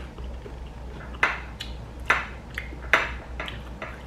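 Eating by hand from a ceramic bowl: about half a dozen short, sharp clicks and taps as fingers work rice against the bowl.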